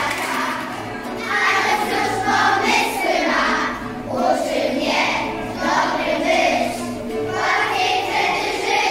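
A group of children singing a song together, accompanied by a strummed acoustic guitar.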